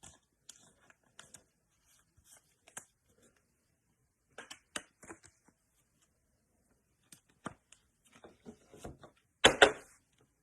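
Trading cards and their packaging being handled: scattered soft clicks and rustles, with a louder rustle about nine and a half seconds in.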